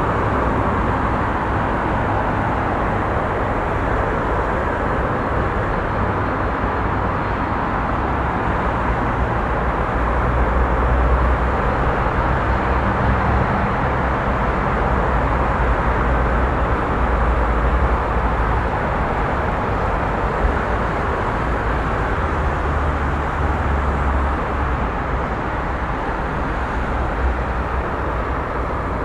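Busy city street traffic: a steady wash of passing vehicles, with low engine rumble that swells and fades as individual vehicles go by.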